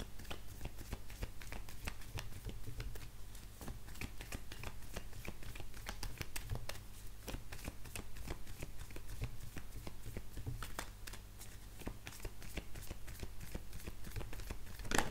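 A deck of oracle cards being shuffled by hand: a steady run of quick soft card clicks and slides, ending in one louder sharp snap.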